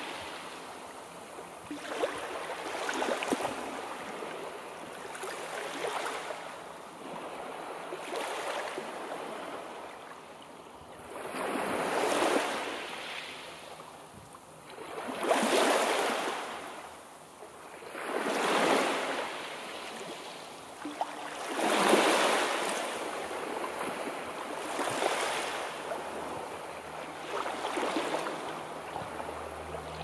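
Sea waves breaking and washing up the shore, one after another about every three seconds. The biggest waves come through the middle.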